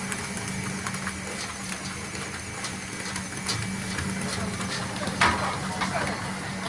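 Kitchen noise: a steady low hum under scattered light clicks and clinks, with one louder clatter about five seconds in.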